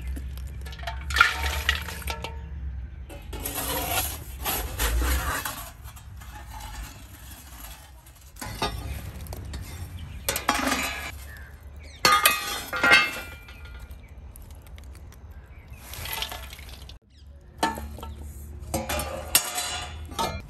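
Chunks of burning charcoal clinking and scraping as a metal rake drags them out of a mud oven, in several separate bursts with quieter gaps between.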